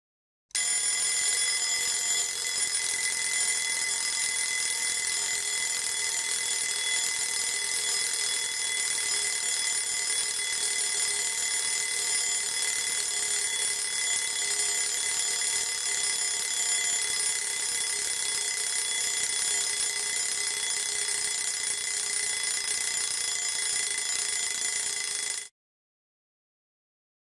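A steady ringing alarm-type sound effect made of several fixed high tones, holding an even level for about 25 seconds and then cutting off abruptly.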